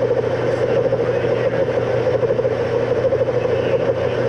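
Engine lathe running with the power feed engaged, the carriage traversing while the turning tool cuts along the workpiece. A steady hum with a rough, fluttering band of sound over it.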